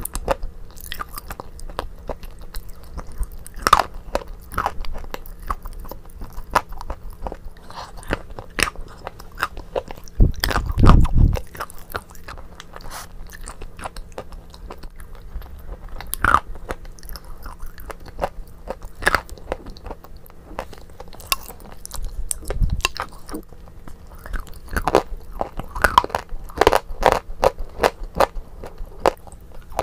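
Close-miked mouth sounds of eating a thick creamy dessert off a spoon: wet chewing, lip smacks and many sharp clicks, denser near the end. A loud low thud lasting about a second comes about ten seconds in.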